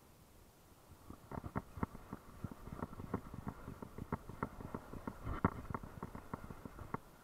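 Spinning reel cranked during a jig retrieve: a run of irregular clicks and knocks, several a second, starting about a second in and stopping near the end.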